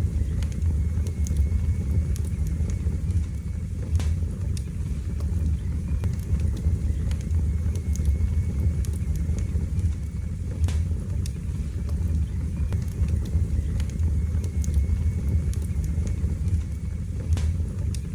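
Wood fire burning in a fireplace: a steady low rumble of the flames with scattered sharp crackles and pops, a few standing out clearly.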